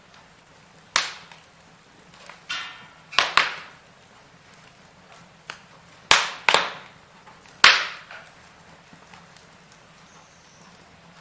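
Wood fire in a fireplace crackling, with about seven sharp, irregular pops over a quiet background; the loudest pop comes about two thirds of the way through.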